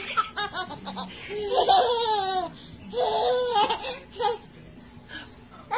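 A baby laughing and squealing in short spells, with pauses between.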